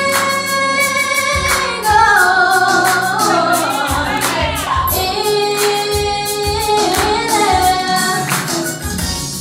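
Group of young girls singing together into microphones, holding long notes that change pitch every second or two, over a steady beat.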